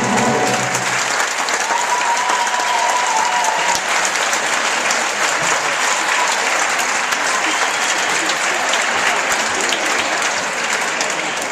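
Theatre audience applauding steadily at the end of a musical number, with the pit orchestra's final held chord dying away in the first second.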